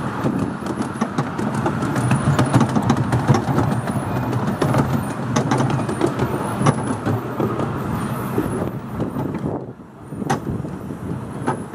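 Ride noise from an open carriage of a 10¼ inch gauge miniature steam railway: the carriage wheels rumbling along the track with frequent sharp clicks over the rail joints and points. The noise dips briefly near the end, then picks up again.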